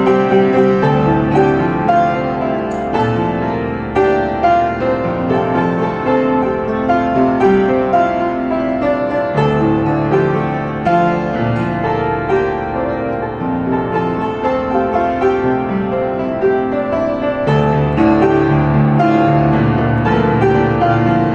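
Piano-led music playing a slow, tender melody with chords.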